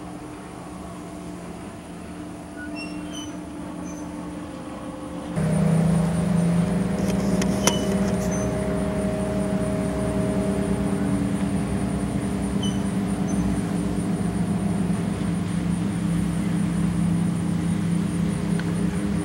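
Motorboat engines droning steadily as boats cruise past on the lake, heard from shore. About five seconds in the drone jumps clearly louder and stays that way, with closer boats in view.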